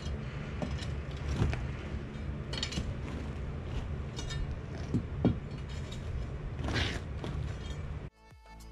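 An engine running steadily in the background, with scattered knocks and clinks of work at the trench. Near the end it cuts off and violin music begins.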